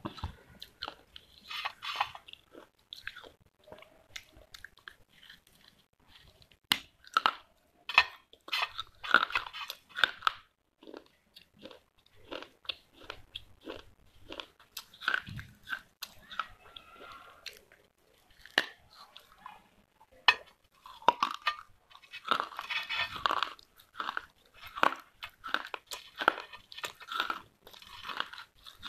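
Biting and chewing pieces of a small red clay pot (diya): a run of sharp, irregular crunches as the hard clay breaks between the teeth, with quieter chewing between bites.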